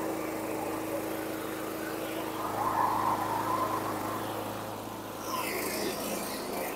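Single-cylinder overhead-valve engine of a 2000 Scotts walk-behind lawn mower (built by John Deere) running steadily.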